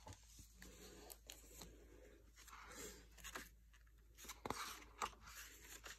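Faint paper rustling and a few brief soft taps as a hardcover book is opened by hand and its pages are turned.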